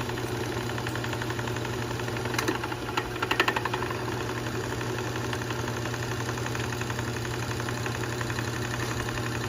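Heated ultrasonic parts-cleaner tank running with a steady buzzing hum and a fast fine rattle, with a short louder clatter about three seconds in.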